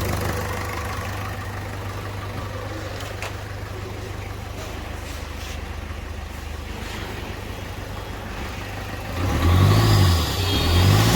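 Ford Figo diesel engine idling steadily with a freshly refitted injector, then revved twice near the end, the pitch rising and falling each time.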